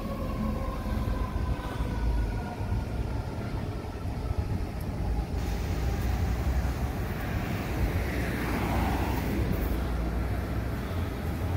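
Low rumble of vehicle engines and street traffic, with the falling wail of a fire apparatus siren dying away in the first couple of seconds. Another vehicle swells past about eight seconds in.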